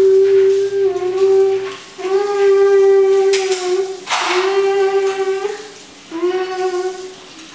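A young child's voice holding long, steady hummed notes one after another, each about two seconds long with short breaks between, and a brief breathy rush about four seconds in.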